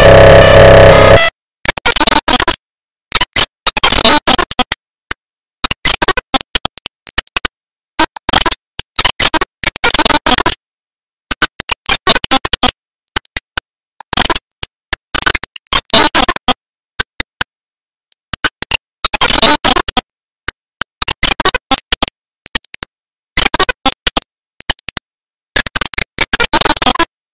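Loud, harsh, noisy music that plays steadily for about a second, then cuts in and out in rapid stuttering chunks separated by abrupt silent gaps.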